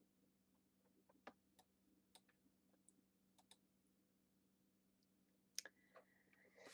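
Near silence, with a dozen faint, scattered computer mouse clicks over a faint steady low hum.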